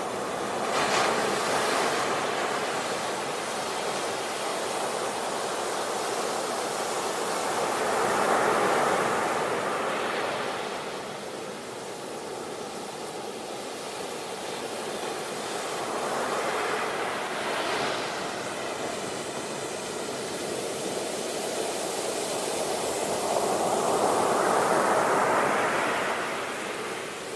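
Sea waves breaking on the shore, four waves surging and drawing back about eight seconds apart, with a steady surf hiss between them.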